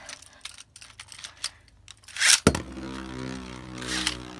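A few small plastic clicks, then a Beyblade launcher's ripcord pulled with a short rush, and the top lands with a sharp clack on the glass stadium floor. It then spins with a steady, pitched hum, with a brief louder scraping rasp about four seconds in.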